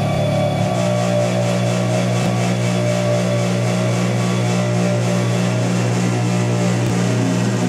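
Blanchard 32D-60 rotary surface grinder running: a steady, loud electric-motor hum with a few steady whining tones above it, one dipping slightly in pitch in the first second.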